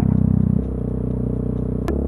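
Aprilia motorcycle engine and exhaust running under the rider, its note held high for the first half second and then settling to a steady lower run. A single sharp click comes near the end.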